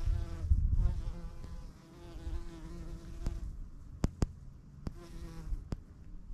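Bumblebee buzzing in flight close to the microphone, its drone wavering slightly in pitch and fading back before returning. A few sharp clicks sound in the middle, over a low rumble.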